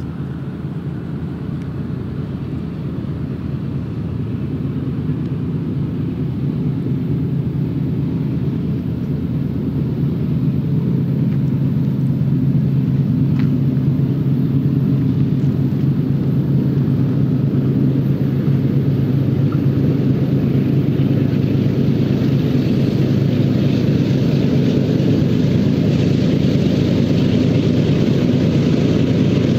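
Lead diesel locomotives of a loaded Union Pacific coal train, GE C45ACCTE (ES44AC) units, running under power as the train approaches: a steady low engine drone that grows gradually louder throughout.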